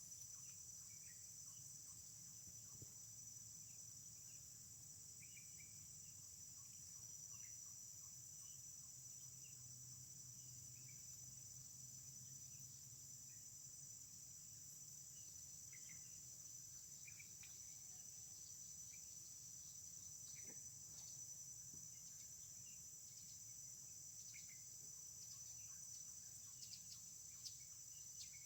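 Faint, steady, high-pitched insect chorus that never breaks, with a few faint short chirps scattered through it.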